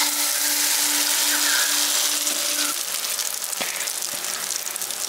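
Egg and red lentil batter poured into hot mustard oil in a kadai, sizzling as it hits the oil and easing off slightly as it settles. One small click about three and a half seconds in.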